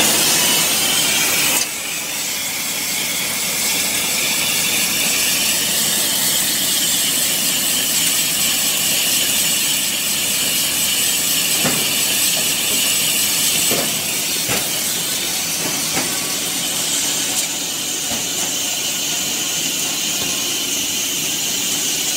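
Rotary water-bottling filler and capper machine running: a steady hiss with a few faint clicks. About two seconds in, the lower machine rumble drops away and the hiss is left.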